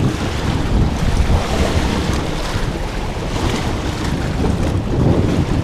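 Wind buffeting the microphone over fast river current rushing past, a steady noise loud enough to drown out everything else.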